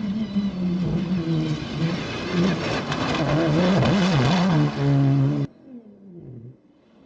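Off-road rally car's engine at high revs, its pitch rising and dropping repeatedly as it accelerates and shifts gear. The sound cuts off suddenly about five and a half seconds in, leaving a much fainter engine revving up and down.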